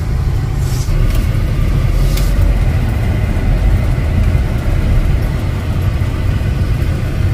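Car on the move heard from inside the cabin: a steady low rumble of engine and road noise, with a few light clicks in the first couple of seconds.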